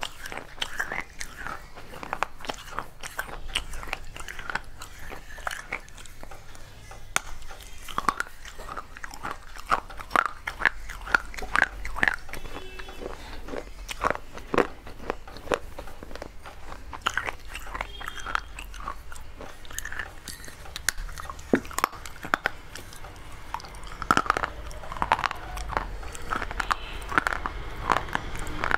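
A small clay pot being bitten and chewed: a dense run of crisp, irregular crunches as pieces of dry, brittle clay break in the mouth.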